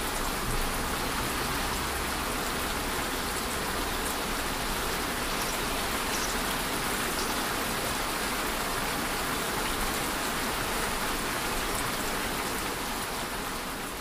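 Steady rain ambience, an even hiss that begins to fade at the very end.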